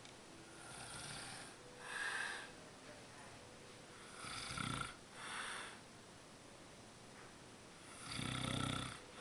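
A sleeping man snoring: slow breaths in and out, with a low snore about four and a half seconds in and a longer, louder one near the end.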